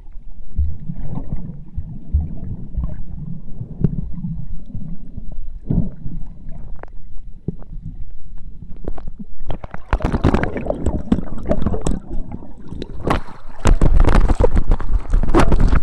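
Muffled water sloshing and bumps heard through a camera held underwater. About ten seconds in it turns into louder splashing, crackling and knocking handling noise, with a heavy low rumble near the end.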